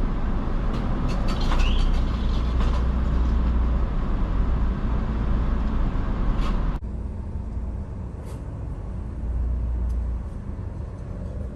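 Low, steady rumble of a car running, heard from inside the cabin, with a few light clicks in the first few seconds. About seven seconds in it drops suddenly to a quieter rumble.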